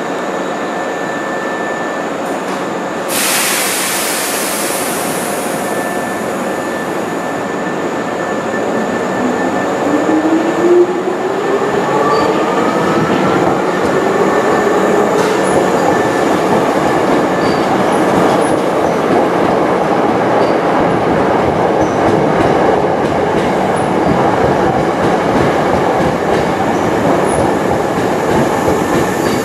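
Maroon Hankyu electric commuter train running in along the station platform. Its wheel and running noise grows louder about ten seconds in and stays loud as the cars pass close by. A few seconds of hiss come about three seconds in, and a whine rises in pitch as the train comes in.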